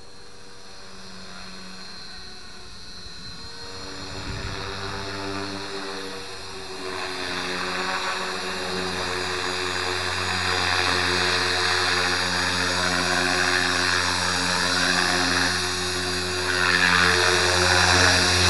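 Align T-Rex 450 Pro electric RC helicopter in flight: its rotor blades and electric motor make a steady whirring whine that grows louder as it comes closer.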